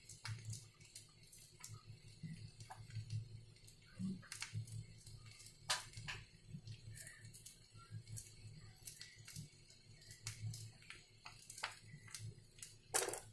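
Green chilli being sliced with a small knife against the thumb over a pan, a run of faint, irregular small clicks, with a louder cluster of clicks near the end. A low steady hum runs underneath.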